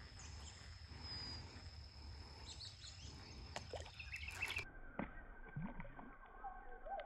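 Faint outdoor ambience: a low wind rumble, a short bird chirp about a second in, and a few soft clicks and knocks in the second half.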